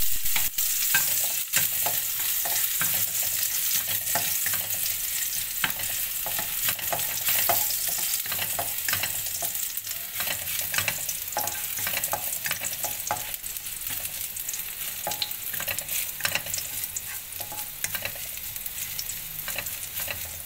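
Chopped garlic sizzling in hot oil in a non-stick wok, stirred with a plastic spatula that scrapes and taps against the pan. A steady hiss with many short ticks from the spatula, easing slightly toward the end.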